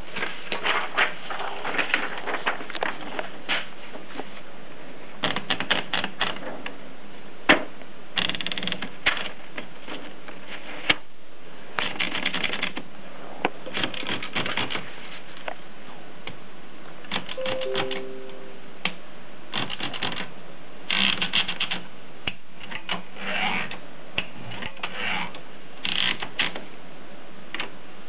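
1950s Groma Kolibri portable typewriter being worked by hand as a sheet of paper is fed in: bursts of ratcheting clicks from the platen turning and the mechanism moving, with two sharp single snaps in the first half.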